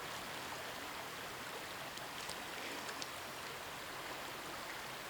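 Steady rushing outdoor noise, like running water or rain, with a few faint ticks a couple of seconds in.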